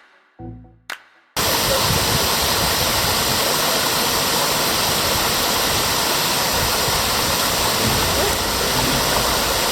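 A few decaying notes of background music, then, cutting in sharply about a second and a half in, the steady rush of a waterfall pouring down close by.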